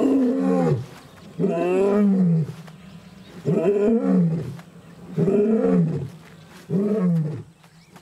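Adult male lion roaring: a series of about five long, moaning calls, each falling in pitch, coming every one and a half to two seconds. It is a territorial roar answering the roars of rival males.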